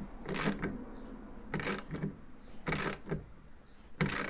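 Socket ratchet clicking in four short runs about a second apart as it spins the alternator pulley nut down onto the shaft.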